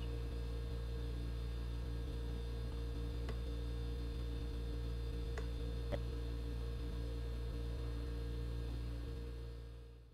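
Steady electrical mains hum with a few faint clicks, fading out at the end.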